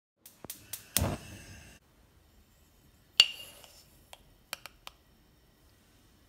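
A glass jar of sesame seeds being handled: several clicks and a heavier thump about a second in, then a loud, ringing glass clink just after three seconds and a few light taps as a plastic measuring spoon scoops seeds from the jar.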